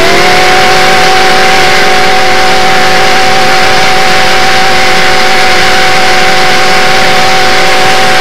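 Southern Pacific cab-forward steam locomotive's chime whistle blowing one long, steady blast of several notes sounding together, over the steady noise of the moving train.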